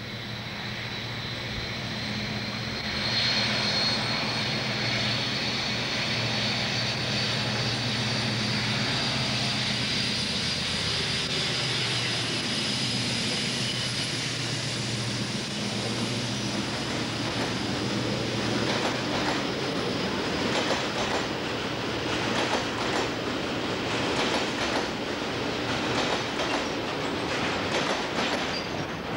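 Class 56 diesel-electric locomotive passing at close range: its engine drone swells about three seconds in, with a high whine on top. In the latter part the train's freight wagons roll by in a rapid clatter of wheels over rail joints.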